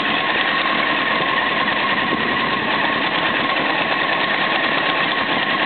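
1995 Honda CBR900RR inline-four engine idling warm with a steady, fast mechanical knocking from up in the engine, which the owner thinks sounds like a loose cam chain.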